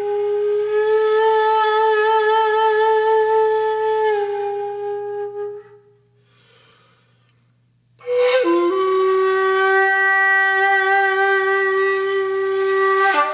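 Shakuhachi playing slow solo music: a long held note with a gentle waver fades out about five seconds in, followed by a pause of about two seconds. Then a sharp, breathy attack drops in pitch into the next long held note.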